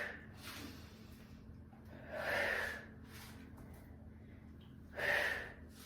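A woman's forceful breaths out, twice, about three seconds apart, each timed with a swing of the weight in a wood-chop exercise.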